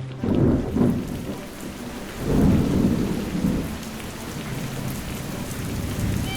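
Thunderstorm: steady heavy rain with rolling thunder that swells twice, about a quarter second in and again about two seconds in.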